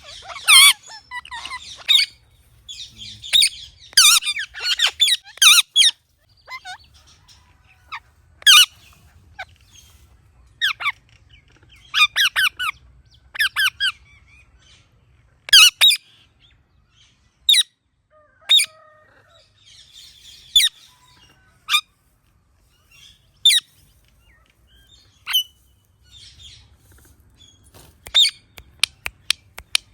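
Indian ringneck parakeet calling with short, sharp chirps and squawks. They come in quick clusters over the first few seconds, then as single calls every second or two, and as a rapid run of chirps near the end.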